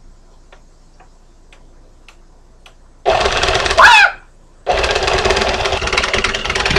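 Vintage electric stand mixer switched on about three seconds in and running with a loud rattling whir as it beats cake batter on low speed; it cuts out for about half a second, then starts again and keeps running.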